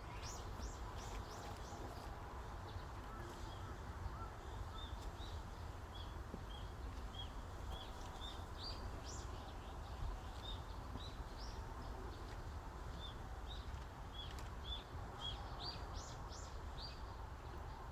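Forest ambience: a steady breeze-like rush of wind with small birds chirping over it, short high notes repeated one to two times a second throughout.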